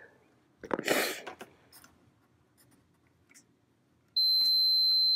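Digital multimeter's continuity beeper giving one steady high beep that starts about four seconds in, as both probes touch terminals of the daisy-chained switches: the wire between them is continuous. A brief rustle of the probes being handled comes about a second in.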